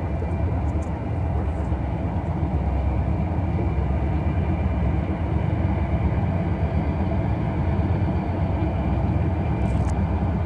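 Diesel locomotives of a loaded coal train, heard as a steady low rumble with a faint whine above it.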